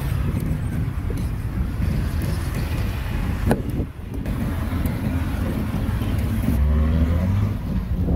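Street traffic noise, a steady low rumble, with a single sharp knock about a third of the way in and a motor vehicle engine passing close near the end.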